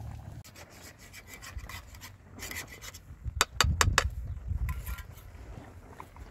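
A metal spoon scraping and clinking against a metal cooking pot as rice is stirred over a campfire, with a quick run of sharp clinks about halfway through. A low rumble of wind on the microphone sits underneath.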